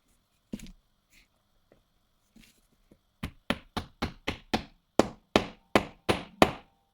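A single knock, then from about three seconds in a run of about a dozen hammer taps, three to four a second and getting louder, pressing a ball bearing into a shifter linkage part.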